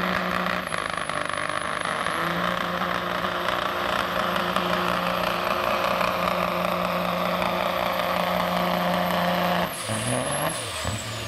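Freightliner semi truck's diesel engine running hard at steady high revs under full load while pulling a sled, with a high turbo whistle over it. Near the end the revs drop sharply and the whistle falls away.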